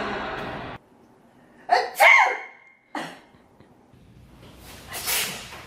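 A person sneezing: a loud sneeze with a sharp catch of breath and a pitched voiced cry about two seconds in, a short sharp follow-up just after, and a breathy burst near the end. Under a second in, a noisy sound cuts off abruptly.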